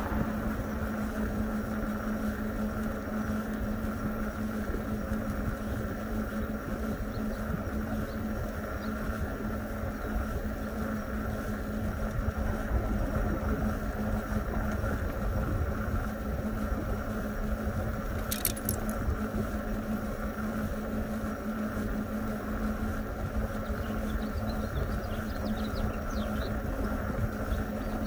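Electric bike riding along a paved street: steady wind and tyre rumble with a constant motor hum.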